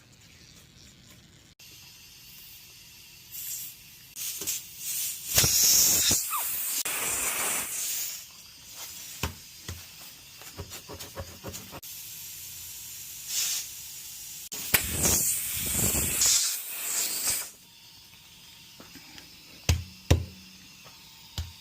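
Air hissing in two long bursts, one about five seconds in and one about fifteen seconds in, with scattered clicks and knocks between them.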